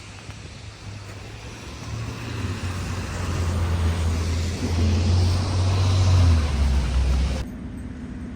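A vehicle's low engine rumble growing louder and dropping in pitch, then cut off abruptly near the end.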